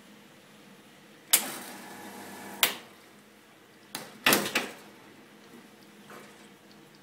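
Espresso equipment being handled: a sharp clack, then about a second of rattling noise ended by another clack. A second and a half later comes a quick run of three or four hard knocks.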